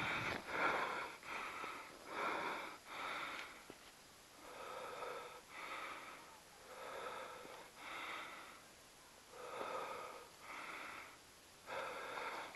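A person breathing hard through the mouth in rhythmic in-and-out pairs, quicker at first and slowing after about four seconds, as after exertion.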